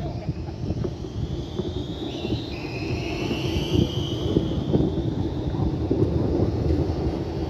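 Electric tram running past: a low rumble of wheels on rail with irregular knocks, and a high whine that rises slowly in pitch from about two and a half seconds in.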